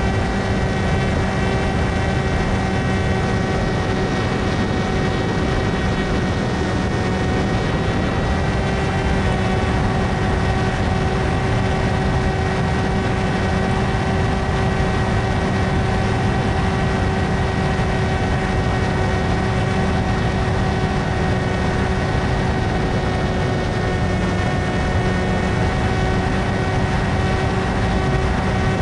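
Electric motor and propeller of an S800 flying wing in flight: a steady propeller whine with several tones over a heavy rush of wind, the pitch shifting slightly a couple of times.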